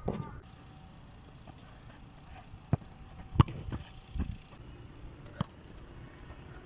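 A football being kicked and juggled: about five sharp thuds of foot striking ball at uneven gaps, the loudest about three and a half seconds in.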